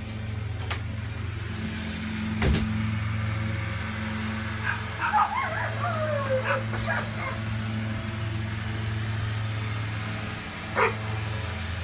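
A dog yipping and whining in a short run of high cries, about five to seven seconds in, over a steady low hum. A sharp knock a couple of seconds in and another short cry near the end.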